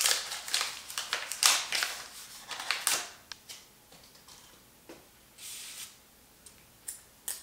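Paper sleeve of a pair of disposable wooden chopsticks rustling and crinkling as it is opened and slid off, mostly in the first three seconds, followed by a few light clicks.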